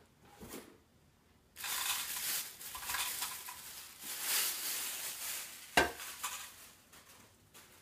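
Clear plastic bag crinkling and rustling as a stainless steel cooking pot is pulled out of it, then a single sharp knock near six seconds in as the metal pot is set down on the stone countertop.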